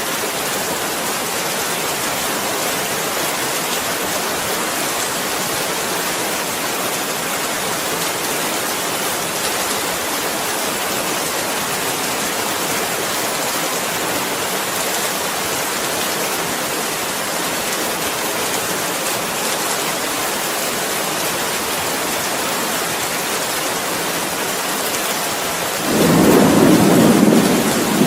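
Steady rainfall. Near the end a roll of thunder rumbles in and is the loudest thing heard.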